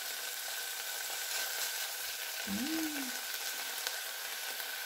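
Ground beef sizzling steadily as it fries in a saucepan on an electric hot plate. About two and a half seconds in there is a short hummed "mm" that rises and then falls in pitch.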